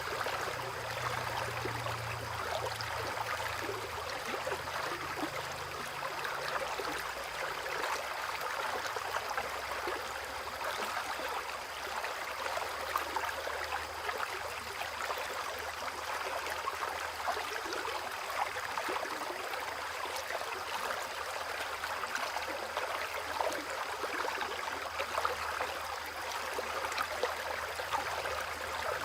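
Rain falling beside a flowing stream: a steady rush of water with many small drop ticks scattered through it.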